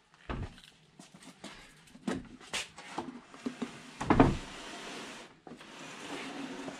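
Wooden plank bed platform being handled and set onto a pickup's tailgate: scattered knocks and clicks, a thump near the start and a heavier, deeper thump about four seconds in as it lands. A steady rushing noise follows.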